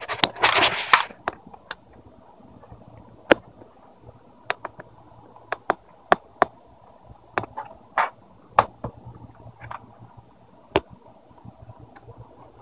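Plastic screen bezel of a Lenovo G780 laptop being pressed back on, its clips snapping into place in a series of sharp clicks, after a brief scraping rustle near the start.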